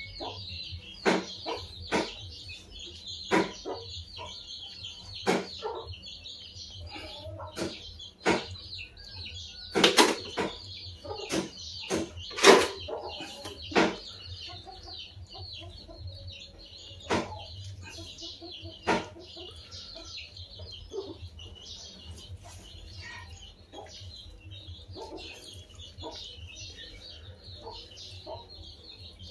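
Raw duck intestines being handled in a steel basin: scattered sharp clicks, taps and wet handling noises, loudest around ten to fourteen seconds in. Birds chirp steadily in the background.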